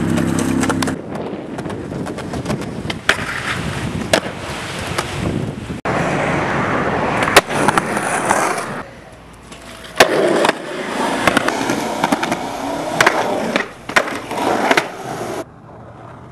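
Skateboard urethane wheels rolling on concrete, with many sharp clacks from tail pops, board slaps and landings. The sound changes abruptly several times between takes and is quieter near the end as a skater rolls up to a stair set.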